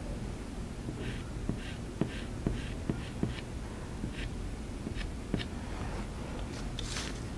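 Soft pastel stick scratching over the painting in short strokes, about two a second, with small ticks, over a low steady hum. A brief hiss comes near the end.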